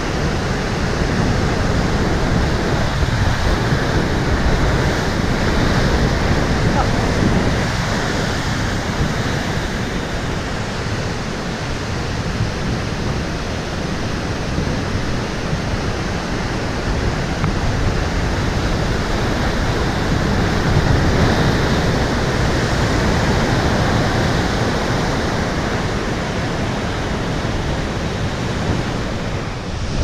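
Heavy ocean surf breaking over rocks and churning into foam: a continuous dense rush of water that swells in loudness a couple of times.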